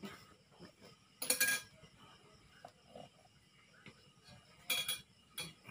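A serving spoon clinking and scraping against plates and a bowl as rice is dished out: two short bursts, one about a second in and one near the end, with a few faint clicks between.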